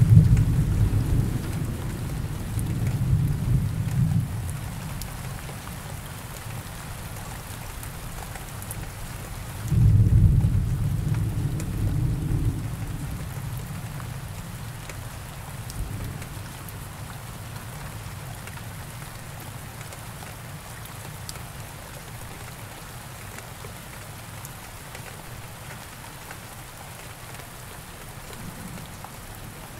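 Steady rain with two rolls of thunder: one starts right away and rumbles for about four seconds, the second comes about ten seconds in and fades out over a few seconds.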